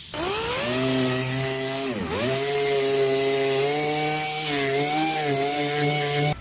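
A handheld power tool's motor spinning up, then bogging down briefly about two seconds in as it bears on the work, and running on steadily until it cuts off abruptly.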